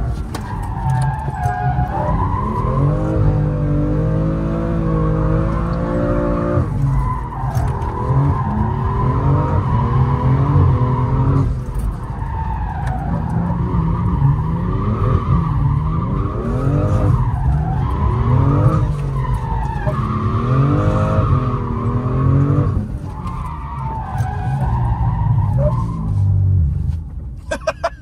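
A roughly 500-horsepower drift car's engine revving up and falling back over and over, with tyres squealing as the car slides, heard from inside the cabin.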